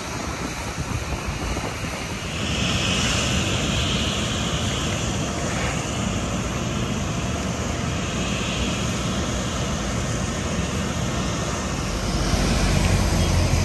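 Boeing 777 airliner's jet engines running as a steady rushing roar, growing louder about two seconds in and again near the end with a deeper rumble.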